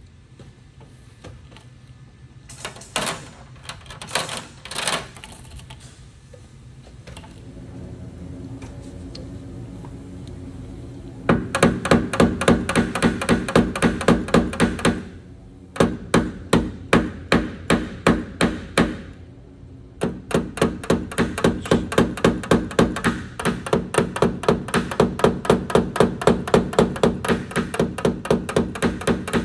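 A mallet tapping a knockdown punch against the aluminum liftgate of a 2021 Silverado. The strikes come in rapid, even runs of about four light taps a second, each with a short metallic ring, broken by brief pauses. This is the tap-down stage of paintless dent repair, working down the metal around a glue-pulled dent. A few separate knocks come in the first seconds.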